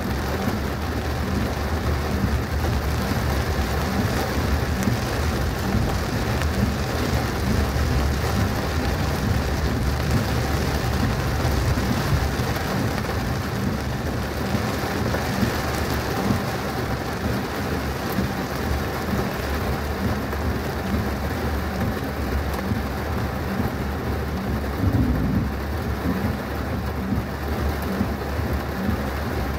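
Heavy rain pelting a moving car, with a steady low rumble underneath. A short rising sound comes near the end.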